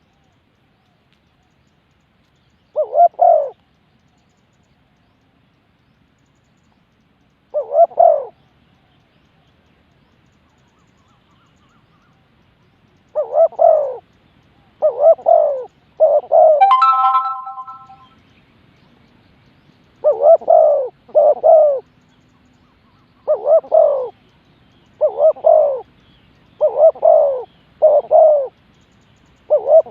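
Spotted dove cooing: two separate coo phrases, then a steady series of phrases about every one to two seconds. A brief clear ringing note comes in near the middle.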